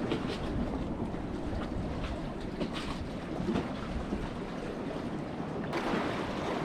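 Wind buffeting the microphone over the wash of the sea, with a few faint clicks.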